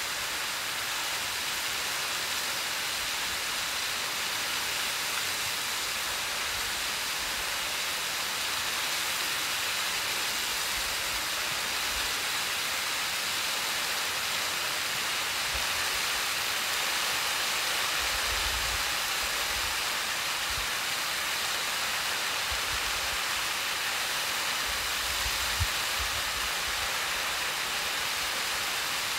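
Waterfall falling onto rocks, a steady rushing hiss, with a few brief low rumbles in the second half.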